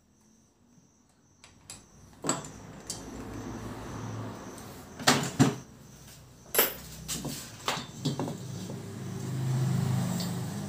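Sharp metal clanks and knocks as a motorcycle cylinder head and a valve-turning tool are handled on a workbench, over a low steady hum. The loudest knocks come about halfway through.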